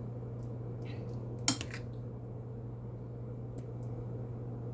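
A spoon clinks sharply once against a frying pan about a second and a half in, with a few fainter ticks, over a steady low hum.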